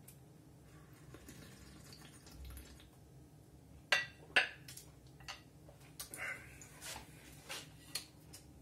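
A large clam shell and a wooden pick clinking against a ceramic plate: two sharp clinks about four seconds in, then several lighter knocks and clicks.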